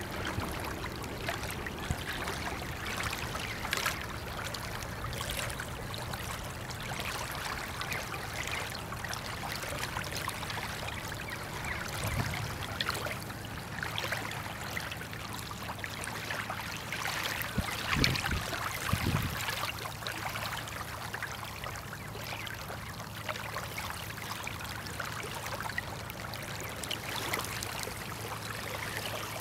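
Small waves lapping and splashing at the river's edge, irregular and ongoing, over a steady low hum. A few soft low thumps come about 12 and 18 seconds in.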